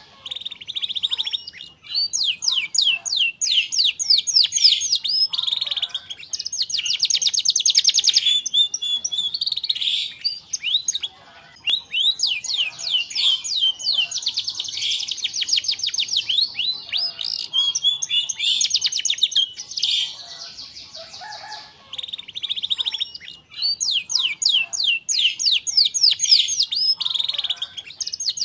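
Domestic canary singing long, continuous song: phrases of very fast repeated high notes and rolling trills, broken by a few short pauses.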